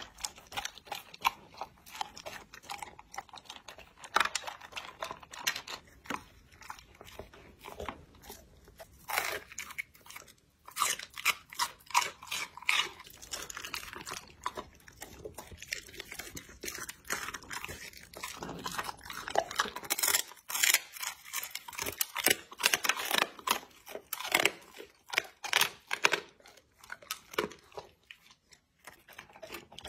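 Labrador retriever chewing and crunching its food, dry kibble and chewy meat, in many irregular crunches and bites.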